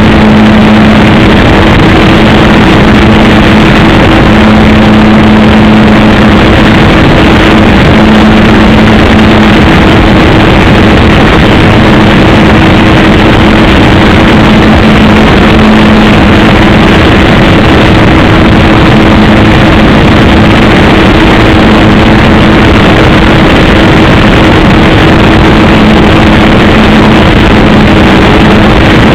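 RC Piper J-3 model airplane engine running steadily at an even pitch, very loud and constant with a slight waver in its drone.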